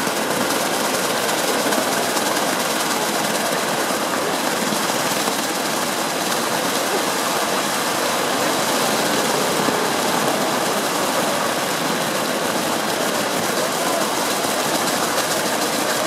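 Fountain water pouring over the rim of a raised bowl and splashing into the basin below: a steady, even rush.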